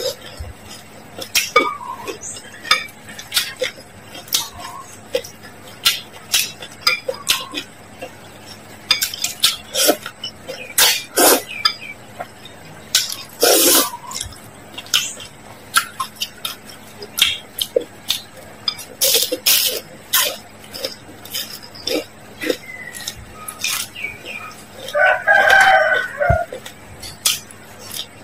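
Close-up eating sounds of noodles being slurped and chewed, with many sharp mouth clicks and smacks and chopsticks and a spoon clinking against a glass bowl. A short pitched call lasting about a second cuts in near the end.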